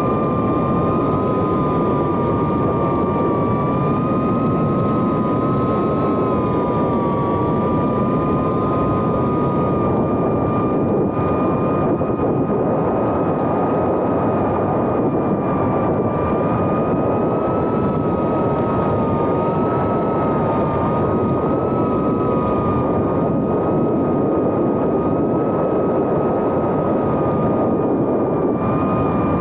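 The four Happymodel 1404 brushless motors and propellers of a 2.5-inch FPV whoop drone whining steadily in flight, heard close up from the onboard camera over a rush of air. The whine holds two close pitches that drift up and down a little as the throttle changes.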